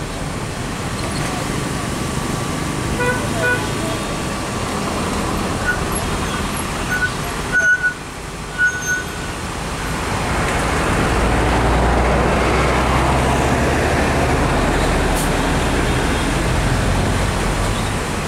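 Steady engine noise with a few short, high toots in the first half. About ten seconds in, a louder engine drone with a steady low hum swells and holds.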